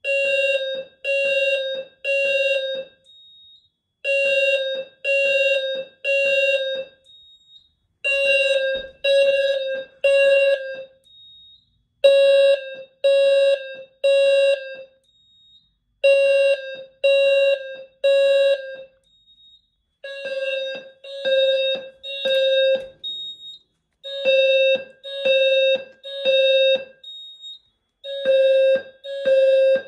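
Simplex TrueAlert fire alarm speaker-strobes sounding a low, buzzy tone in the temporal-three evacuation pattern: three half-second beeps, then a pause, repeating about every four seconds, with the panel in fire alarm.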